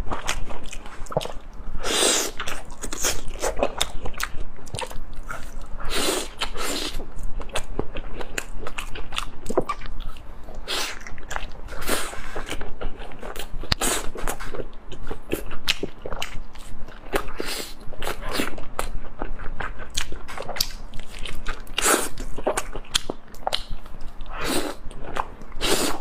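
Close-up eating sounds: a person repeatedly biting into and chewing crunchy food, with irregular crisp crunches.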